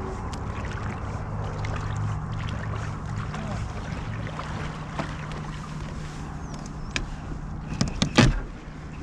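A boat engine runs with a steady low hum under wind and water noise. A few short knocks come through, with a louder knock about eight seconds in.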